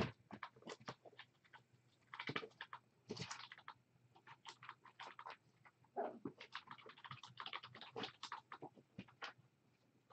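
Kittens moving about and playing: a faint, irregular patter of small taps, clicks and scratches.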